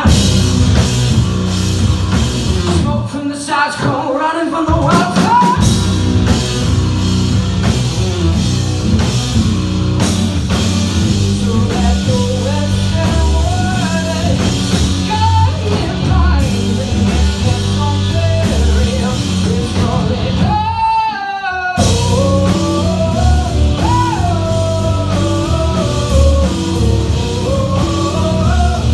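Rock band playing live, with singing over guitars, bass and a drum kit. About two-thirds of the way through, the band drops out for about a second under a single wavering note, then comes back in.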